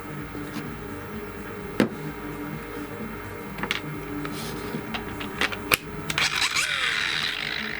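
Scattered sharp clicks and knocks of hard objects being handled, then a short burst of rattling near the end, over a steady low hum.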